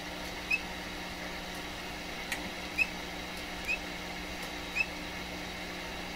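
Steady low mains hum and hiss from a Conar signal tracer's speaker, with no crackle of arcing from the leaky capacitor under test. Four short high chirps come through at uneven gaps, and a faint click a little past two seconds in.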